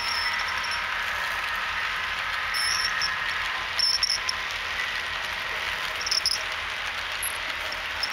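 HO scale model freight cars rolling along the track: a steady whirring rattle of the small wheels on the rails, broken by a few short high-pitched chirps.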